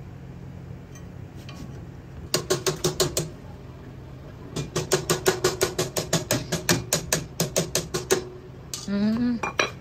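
Quick metallic strikes, each with a short ring, come in two rapid runs during work on an e-bike's brakes. The first is a brief burst; the second lasts about three seconds at roughly six strikes a second.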